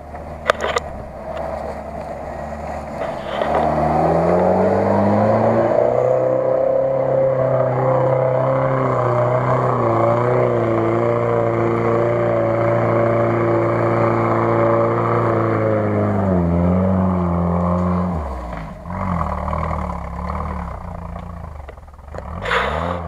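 Off-road 4x4's engine revving up and holding high, steady revs under load as it drives through deep muddy ruts, then easing off about seventeen seconds in. A sharp knock sounds near the start.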